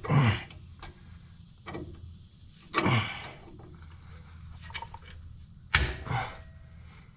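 Hand-tool work on a seized bolt jammed in the bleeder port of a rear drum-brake wheel cylinder: a few short sounds that drop sharply in pitch, and sharp metal clicks, the loudest of them near the end.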